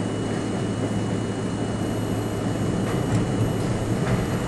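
Subway train running through a tunnel, heard from inside the car: a steady rumble of wheels on rail under a low hum, with a few faint clicks near the end.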